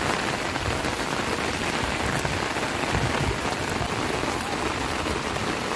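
Steady rain falling on shallow muddy water.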